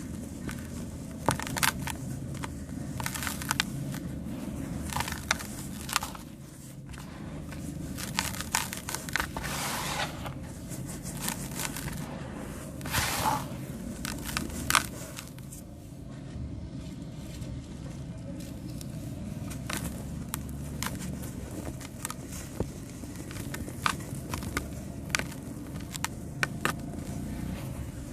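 Sand-cement being crushed and crumbled: an irregular run of sharp cracks and gritty crackles, with a few denser crunches near the middle, over a steady low rumble.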